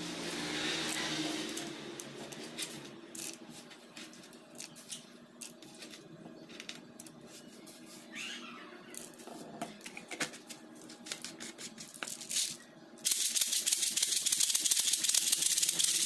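Small beads poured into a plastic tube, a hiss at first, then scattered clicks as they settle and are handled. About 13 seconds in, the homemade plastic-tube guasá shaker is shaken steadily, a dense, loud rattle of beads inside the tube.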